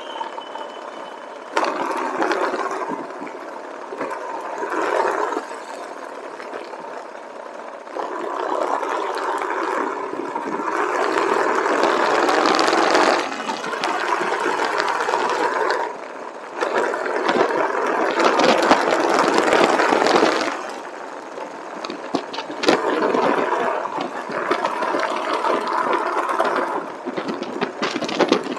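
Motorcycle engine running on the move, with a rough, rattly note that swells and eases several times, loudest for stretches about a third of the way in and again around two-thirds.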